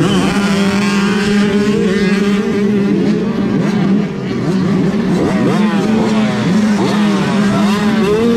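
A pack of 85cc two-stroke dirt bikes accelerating hard together: a sudden loud burst of engines, one held at a steady high pitch up close while several others rise and fall in pitch as they rev and shift.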